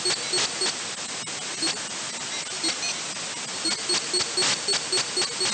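Radio receiver static hiss with a pulsing digital signal: short beeping pulses at several a second. The pulses fade for a few seconds mid-way, then come back.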